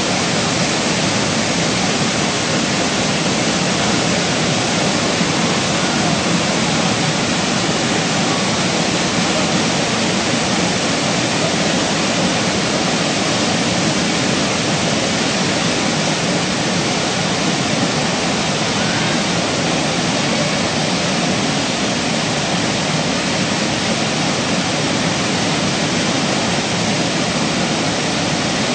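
Waterfall running hard over sandstone ledges into a plunge pool: a steady, even rush of water.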